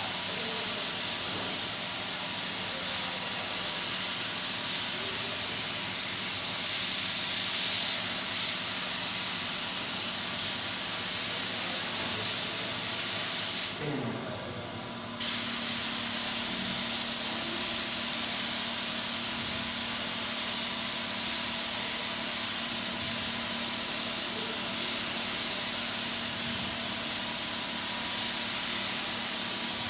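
Compressed-air spray gun hissing steadily as it sprays colour onto a wooden door. The hiss stops briefly about halfway through, then starts again.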